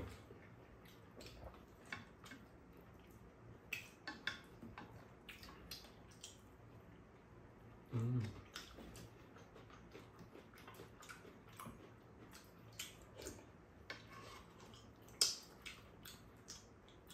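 Quiet eating sounds: spoons tapping and scraping against bowls and a frying pan in scattered clicks, with soft chewing and a short murmured voice about eight seconds in.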